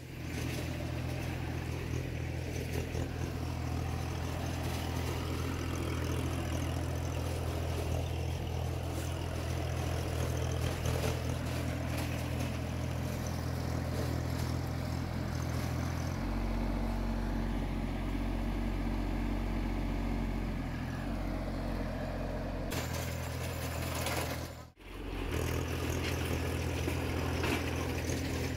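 Farmtrac Atom 26 mini tractor's Mitsubishi diesel engine running steadily under heavy load while it drives a 20-blade gear-drive rotary tiller through sunn hemp, the engine pulled down from its set 1800 rpm to about 1600. The engine note changes pitch about sixteen seconds in and breaks off briefly about twenty-five seconds in.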